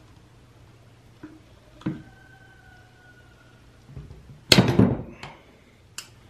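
Needle-nose pliers working a fuel line loose from a chainsaw's fuel tank. A light click about two seconds in is followed by a short metallic ring, then a louder clatter of tool on plastic and metal parts comes past halfway, and a sharp click comes near the end.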